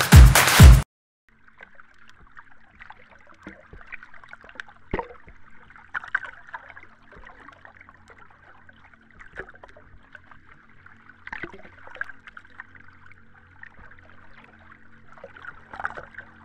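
Electronic dance music ends abruptly about a second in. It is followed by a faint, thin crackling hiss with scattered clicks and a low steady hum.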